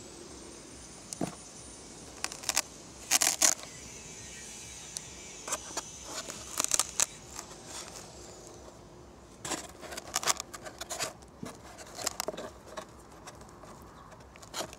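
Clicks, taps and scrapes of a hand handling a LiPo battery pack, its clip-on voltage checker and wiring inside a foam model seaplane's hull, in scattered clusters over a faint steady high whine.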